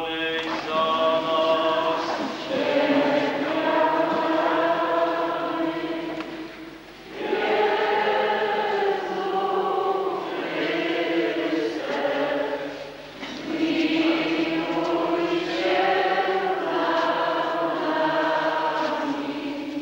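A church congregation singing a slow hymn together between stations of the cross, in long sung phrases with short breaks about 7 and 13 seconds in.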